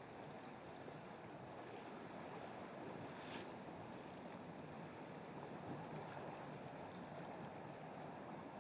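Steady low rushing of river water flowing, with one faint click about three seconds in.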